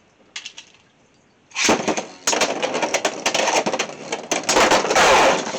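Beyblade X spinning tops, Cobalt Drake against a custom Knight Helm, launched into a plastic stadium and clashing, a rapid run of sharp plastic clicks and impacts that starts suddenly about a second and a half in. The hits grow to a loud grinding peak near the end as one top is knocked out for an extreme finish.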